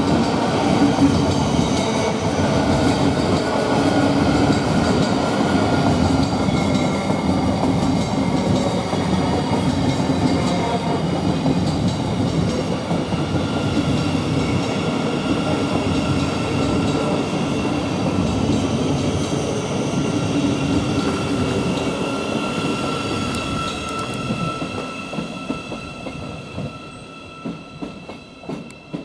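Thameslink Class 700 electric multiple unit pulling into the platform: a loud, steady rumble of wheels on rail with some clickety-clack. In the second half a steady high squeal joins in as it slows, and the noise fades away as the train comes to a stop near the end.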